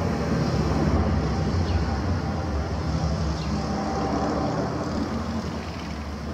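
Four-engine Airbus A340 jetliner passing low overhead on approach with its gear down, a steady low jet rumble that slowly fades over the last few seconds.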